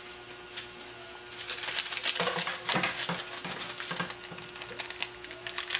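Pork adobo bubbling in a pot over a gas flame: a dense crackle of small pops that grows busier about a second and a half in.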